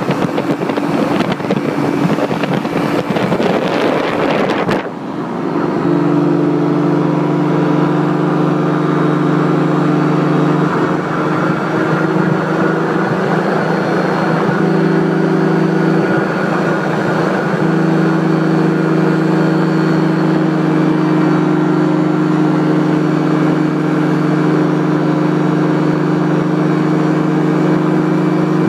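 Wind rushing on the microphone for the first few seconds, then, from an abrupt change about five seconds in, the steady drone of a paramotor's engine and propeller in flight, holding an even pitch with small shifts in throttle.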